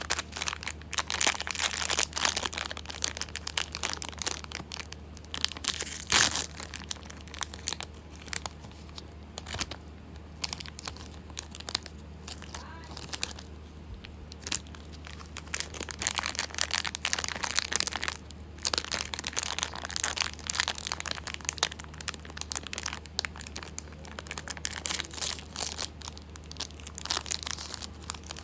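Plastic candy and lollipop wrappers crinkling, crackling and tearing as the packets are handled and opened, in irregular bursts.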